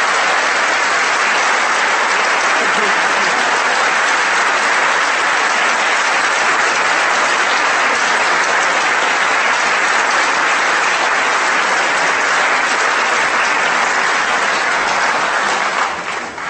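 Large audience applauding steadily for about sixteen seconds, fading away near the end.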